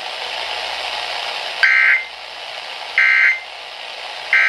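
Emergency Alert System end-of-message data bursts: three short, identical, shrill digital bursts about a second and a half apart, marking the end of the warning broadcast. Steady radio static hiss underneath.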